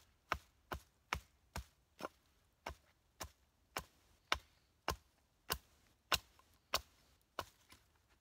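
Hatchet chopping into a piece of wood to shape it: a steady run of sharp, evenly spaced strokes, about two a second.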